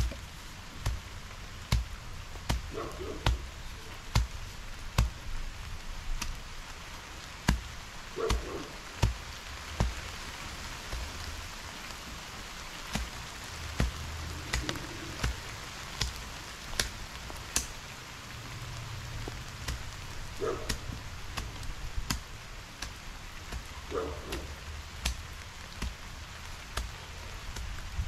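A long-handled garden tool chopping and scraping through weeds and soil: irregular sharp strikes, the loudest about one every second or two, with a low steady rumble underneath.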